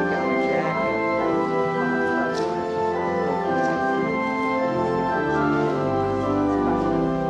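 Church organ playing held chords over a moving bass line: a hymn introduction, ending just before the choir comes in.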